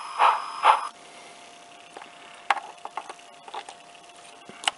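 A few sharp clicks and light knocks as a small cube speaker and its wires are handled and connected, over a faint steady tone.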